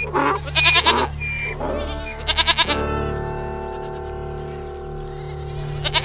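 A young goat bleats in wavering calls: twice in the first three seconds and once more near the end. Steady droning background music plays throughout.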